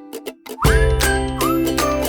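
Cheerful children's-style background music. It thins out to a few light ticks, then comes back in about half a second in with a steady bass line, bright plucked notes and short rising slides in the melody.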